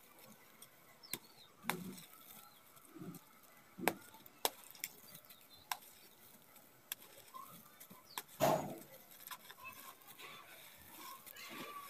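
Hands crushing dried clumps of gritty red dirt and letting the loose grains trickle down: soft crunches with scattered sharp clicks of grit. The loudest crunch comes about eight and a half seconds in.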